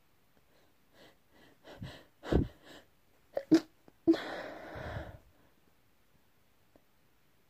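A person sneezing. Short catching breaths build up, sharp bursts come at about two and three and a half seconds in, and just after four seconds a full sneeze lets out a long, breathy blast.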